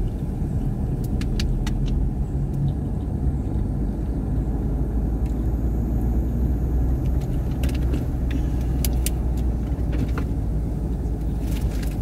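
Car driving along a road, heard from inside the cabin: a steady low rumble of engine and tyre noise, with scattered light clicks.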